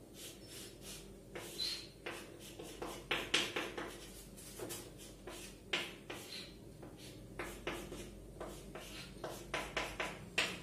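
Chalk writing on a chalkboard: short, irregular scratches and taps of the chalk stick as a chemical structure is drawn, with an occasional brief squeak.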